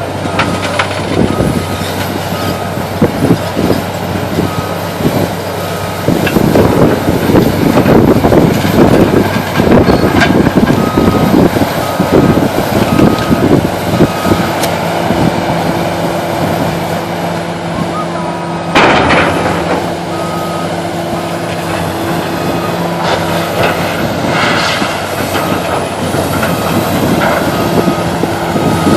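Excavator working: its diesel engine running under load, rising in pitch partway through, while its travel alarm beeps over and over in stretches. A rough clattering stretch builds in the first half, and a single sharp crack stands out about two-thirds of the way through.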